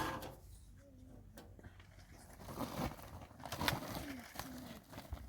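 Pigeons cooing in a few short, low calls, with scattered small clicks and knocks between them.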